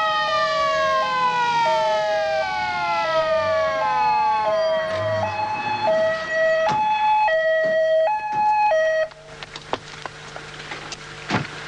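Two-tone ambulance siren alternating high and low about every two-thirds of a second, with a long falling whistle-like tone gliding down underneath for the first five seconds; the siren cuts off about nine seconds in.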